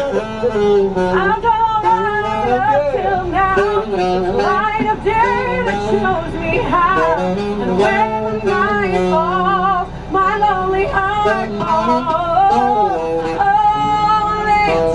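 A saxophone playing a pop melody with a singing voice joining in; the notes waver and slide.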